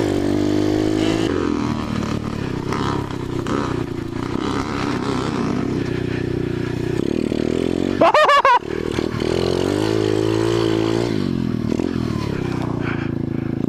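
Dirt bike engine running at a steady speed while riding on a trail. About eight seconds in there is a sharp, loud rev that rises and falls.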